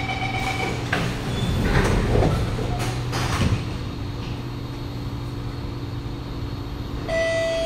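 Kawasaki Nippon Sharyo C751B metro car's door-closing warning tone ends, and the sliding doors shut with several clunks, heard from inside the car. A steady hum from the car follows, and near the end a chime tone begins.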